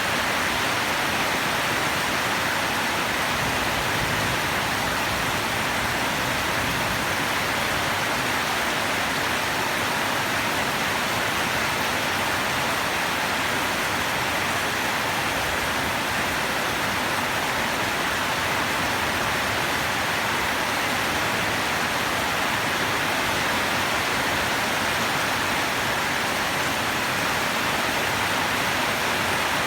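Steady rain falling, an even, unbroken hiss with no distinct drops or thunder.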